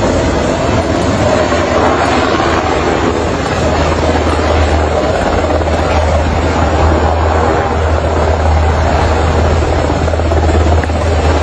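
Helicopter running steadily: a constant deep low hum under a broad rushing noise, with no change in pitch or loudness.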